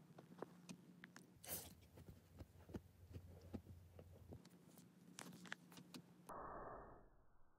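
Faint scratching, rustling and soft clicks of a Shiba Inu pawing at and biting a fleece plush toy on a blanket. A short muffled rush about six seconds in is the loudest sound.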